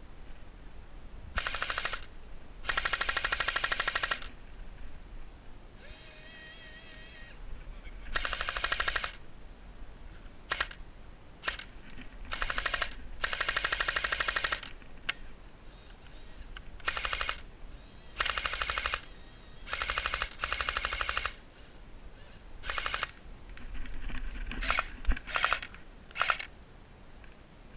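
Airsoft MG42 replica firing on full auto in repeated bursts of one to two seconds, a fast even rattle, with a few single shots between the bursts.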